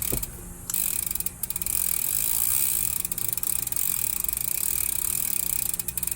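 Mountain bike rear freehub freewheeling, its pawls ratcheting in a fast continuous clicking. The clicking starts under a second in, breaks off briefly, then runs on steadily until near the end.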